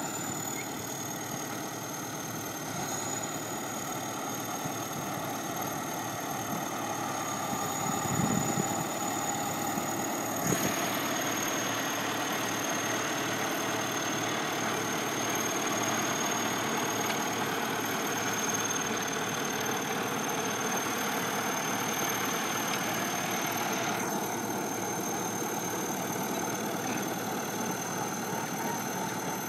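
Caterpillar D7 crawler bulldozer's diesel engine running steadily as the dozer works. There is a short thump about eight seconds in and a sharp knock a couple of seconds later.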